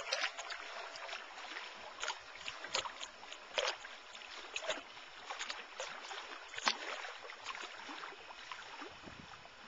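Choppy lake water lapping and splashing in short, irregular slaps, two or three a second.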